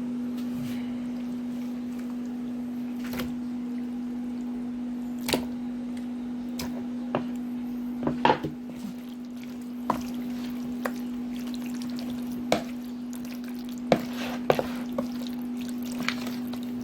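Raw chicken pieces being dropped into and turned through a wet spiced marinade in a bowl: scattered short wet squelches and knocks, over a steady low hum.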